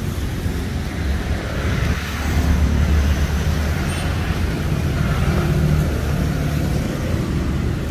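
Road traffic going by, a vehicle engine rumbling low and swelling louder about two to three seconds in, over a steady hum of street noise.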